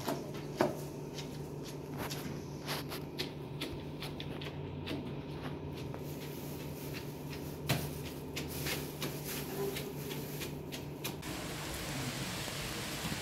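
Irregular small clicks and knocks of hands crushing pomegranate seeds in a plastic basin, over a steady low hum. About eleven seconds in, this gives way to the steady hiss of rain.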